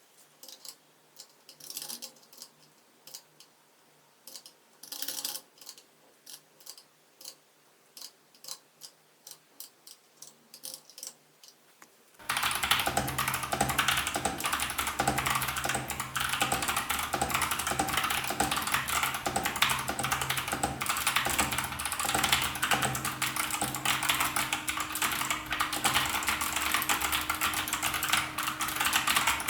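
Gamakay LK67 mechanical keyboard with Kailh Box switches being typed on: scattered single key presses at first, then, a little before halfway, fast continuous typing that is much louder.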